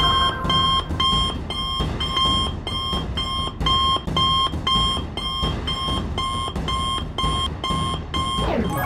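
Electronic alarm beeping steadily, about two and a half beeps a second, each beep a bright fixed tone with a higher overtone: a wristwatch communicator's emergency-call alert. Near the end a falling whoosh sweeps down in pitch.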